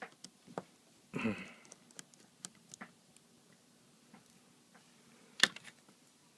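Small irregular clicks and taps of a Phillips screwdriver and small parts on an opened iPad 2 as corner screws are taken out, with a brief rustle about a second in and one loud sharp click near the end.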